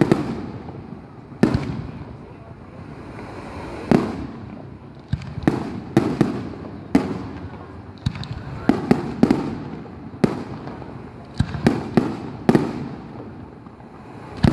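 Aerial fireworks shells bursting overhead: a dozen or so sharp bangs at irregular intervals, about one a second and sometimes two or three in quick succession, each followed by a short rolling echo.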